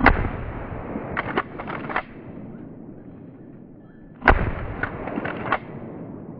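Two shotgun shots about four seconds apart, each followed within a second or so by a few shorter sharp clacks.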